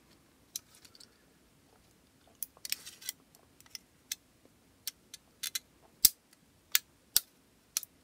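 Thin tin and aluminum sheet from a cookie tin and soda cans clicking and crinkling as the pieces of a tin bird are handled and shaped by hand. The sharp clicks come irregularly, a quick cluster about three seconds in and a few louder snaps later on.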